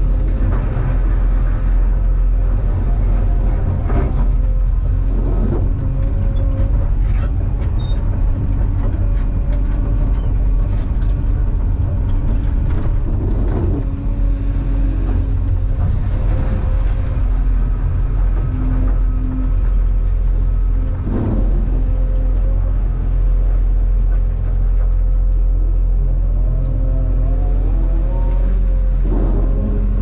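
Cat 390F excavator heard from inside the cab: the diesel engine and hydraulics run steadily under load with a steady whine, while the bucket digs and scrapes through blasted rock with several scrapes and knocks. Near the end the whine rises as the loaded bucket swings.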